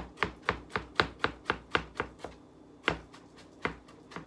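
Chef's knife mincing an onion on a wooden cutting board: a steady run of chops at about four a second, then after about two seconds a short pause and a few slower chops.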